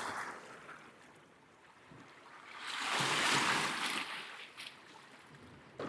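A wave breaking and washing up the beach, swelling from about two seconds in and fading out a couple of seconds later.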